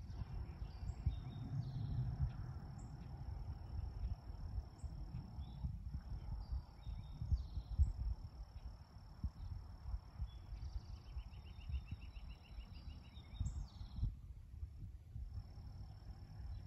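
Outdoor countryside ambience: a steady high insect drone and birds chirping on and off, over a low fluctuating rumble. A fast buzzy trill comes in about eleven seconds in and lasts a couple of seconds.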